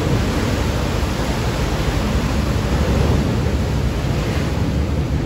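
Steady rushing noise of wind and water on a moving river sightseeing boat, with a deep rumble underneath.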